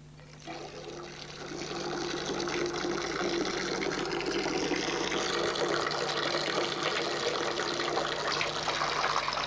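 A bathtub tap is opened and water runs from the spout into the tub. The flow starts about half a second in, builds over the next couple of seconds, then runs steadily.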